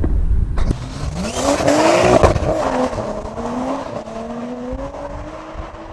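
Nissan Skyline R33 GTS-t's turbocharged straight-six, fitted with an aftermarket exhaust, running as the car drives. The engine note climbs, dips about two seconds in, then rises slowly again, with a swell of tyre and road noise around the dip.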